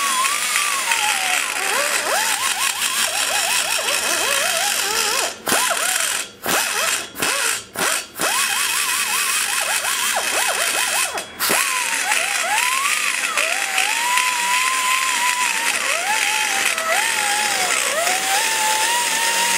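Die grinder with a cutter running at very slow speed, grinding the aluminum valve guide boss inside an LT-1 cylinder head port. Its pitch wavers and sags as the cutter bites and rolls off the metal, and it briefly stops and restarts several times in the middle.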